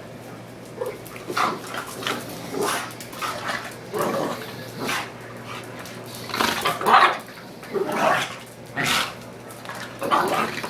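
Two dogs, a small pug mix and a pitbull/ridgeback mix puppy, play-fighting, with a run of short, irregular barks and yelps that starts about a second in and is loudest about seven seconds in.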